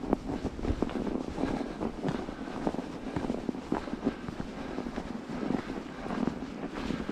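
Wind rushing over the microphone while riding, with steady rolling road noise and frequent small rattles and knocks.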